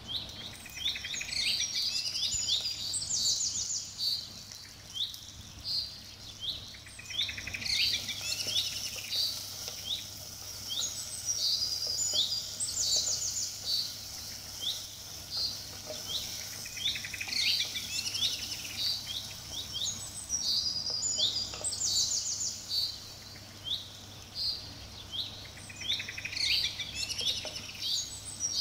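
Birds chirping and trilling: bright high chirps, short down-slurred notes and fast trills in clusters, with the same run of phrases coming back about every eight to nine seconds.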